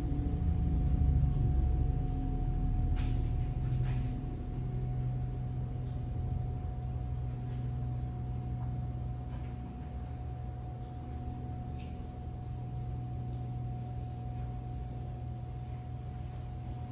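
A low, steady mechanical hum, louder over the first few seconds and then holding level, with a few light clicks about three and four seconds in.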